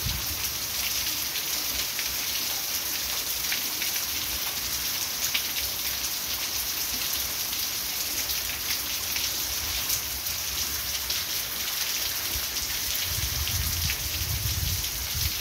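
Heavy rain falling steadily, pattering on the ground and with water pouring off the roof edge, a continuous hiss dotted with small splashes. A low rumble swells near the end.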